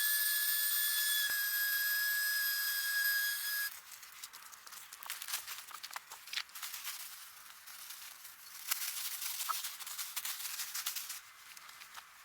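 A loud, steady high-pitched whistle held for about three and a half seconds, then cut off. Irregular crackling and clicking follows.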